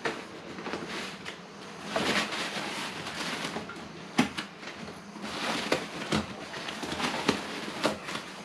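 Elastic cargo net being stretched over a nylon tent bag and hooked onto a motorcycle seat bag: fabric rustling and handling noise, with a few sharp clicks as the net's plastic hooks catch and knock.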